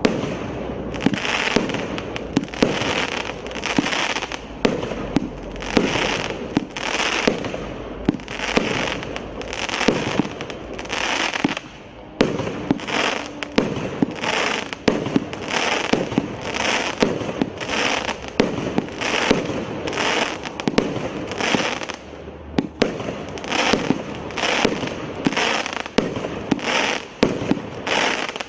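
An 84-shot consumer fireworks cake firing shot after shot, about one and a half shots a second. Each shot is a sharp launch pop followed by a short hiss of noise, with brief pauses about 12 and 22 seconds in.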